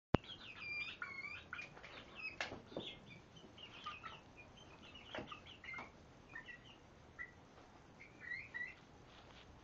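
Young chickens peeping, a steady string of short high calls, with a few sharp knocks among them.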